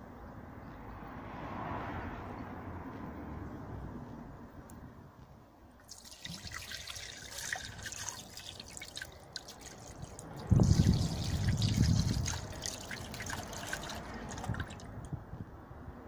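Methylated spirits poured from a plastic bottle into an engine oil sump, splashing and trickling onto the leftover oil and sludge, starting about six seconds in and lasting about eight seconds. Partway through the pour, a louder low rumble comes in for about two seconds.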